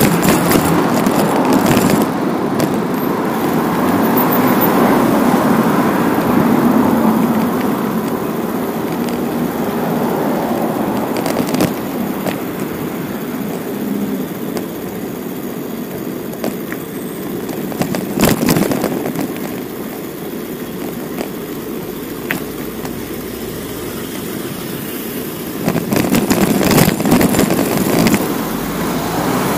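Road and traffic noise heard from a bicycle riding through city streets: a steady rush with a few sharp knocks and clicks, louder for a stretch near the end.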